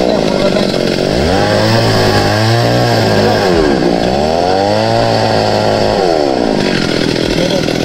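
Two-stroke chainsaw running through wood on a felled tree, its engine revving up and dropping back over and over as it cuts.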